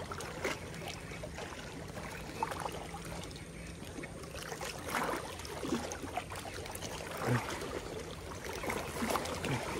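Small waves lapping and sloshing against a rocky shore, a steady wash with a few faint splashes.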